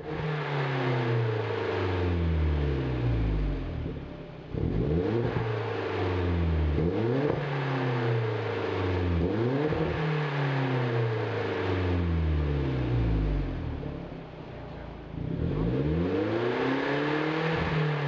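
Hyundai Genesis Coupe 2.0T's turbocharged four-cylinder engine, breathing through an ARK GRIP stainless cat-back exhaust with dual tips each side, revved repeatedly while standing. Each rev climbs quickly and falls back slowly, about every two to three seconds.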